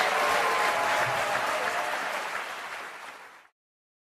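Theatre audience applauding, fading away and cutting off to silence about three and a half seconds in.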